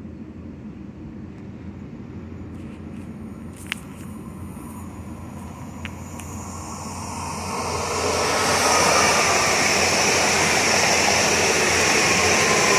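Two-car Koleje Dolnośląskie Newag Impuls multiple unit arriving at the platform. Its rushing wheel and running noise swells from about seven seconds in and stays loud and steady. A faint whine falls slowly in pitch near the end as the train slows.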